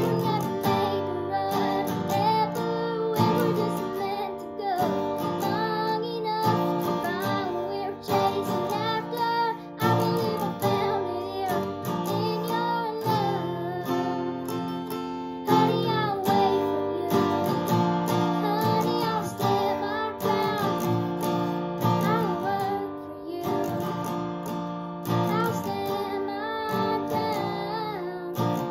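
A young girl singing a slow song and accompanying herself on a strummed acoustic guitar.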